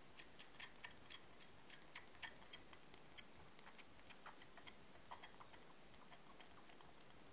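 Faint, irregular wet clicks of a newborn calico kitten suckling at a nursing bottle's teat, several a second at first and thinning out later.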